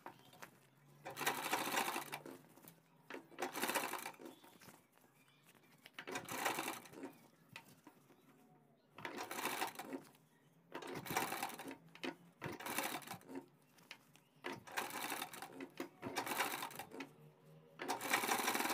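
Domestic sewing machine stitching in short runs of about a second each, stopping and starting again about nine times as a bias strip is sewn onto a neckline for piping.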